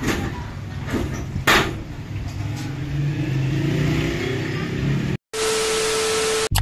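A few household knocks, then a low drone that rises slowly in pitch for a couple of seconds. About five seconds in the sound cuts out, and a burst of TV-static hiss with a steady hum tone follows for about a second, a VHS-style transition effect.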